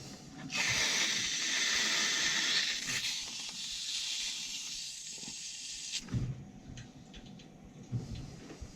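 Water and trapped air rushing out under pressure while a hot water heating loop is purged of air, a loud hiss that starts about half a second in and cuts off suddenly about six seconds in.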